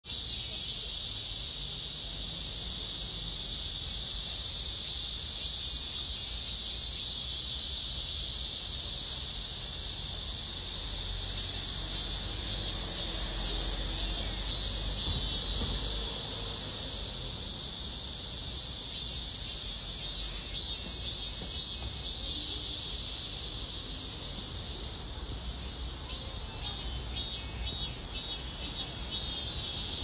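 A 참매미 cicada (Hyalessa fuscata) singing: a loud, steady, high buzz that breaks near the end into a run of pulsed 'maem-maem-maem' notes, about three or four a second.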